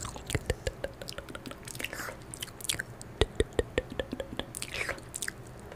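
Close-miked wet mouth sounds: quick irregular clicks, smacks and pops of lips and tongue, with a couple of breathy puffs about two seconds in and near the end.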